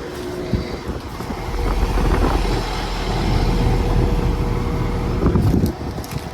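Commercial air conditioning condensing units running, with a heavy low buffeting rumble on the phone's microphone from about a second and a half in that cuts off sharply near the end.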